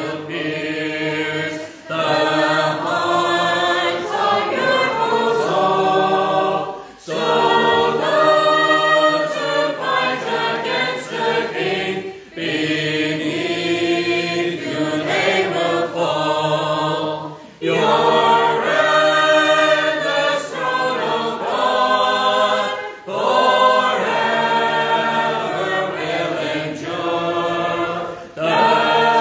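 Congregation singing a metrical psalm together, unaccompanied, in slow sustained lines. A short breath-break falls between lines about every five seconds.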